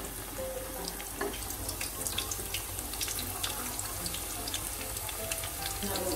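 Breadcrumb-coated ramen and boiled egg deep-frying in a pan of hot oil: a steady sizzle with many small crackles.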